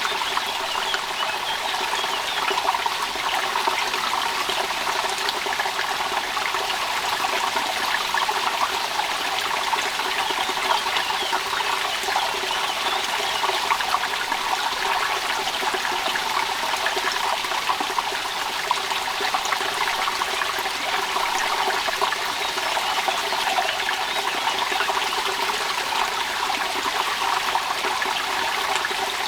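Steady rain with water trickling and splashing: an even, unbroken wash of fine droplet noise that does not change.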